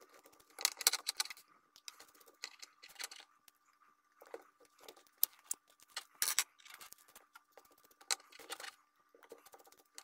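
Steel hex nuts being threaded onto bolts by hand and the bolts set down on a wooden table: faint scattered metallic clicks and scrapes, with a few sharper ticks.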